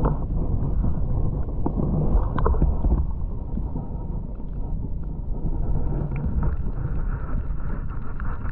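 Wind buffeting the microphone: a steady low rumble with a few faint clicks, open water around it.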